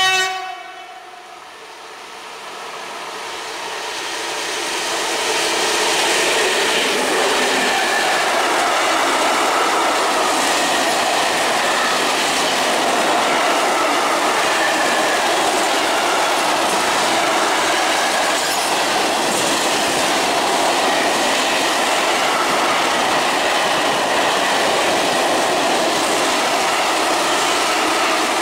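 A BR232 diesel locomotive's horn blast ends in the first moment. The locomotive and a long freight train of open coal wagons then roll past close by. The noise of wheels and wagons grows over the first few seconds, then holds steady with a rhythmic clickety-clack.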